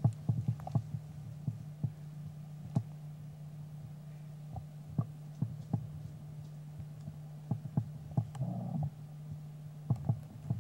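Irregular low knocks and thuds from footsteps and handling of a carried camcorder, several in quick succession at the start and again near the end, sparse in between. A steady low hum runs under them.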